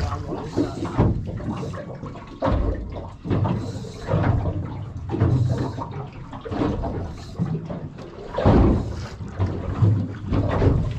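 Water sloshing and slapping against a small boat's hull in irregular surges, the loudest about eight seconds in.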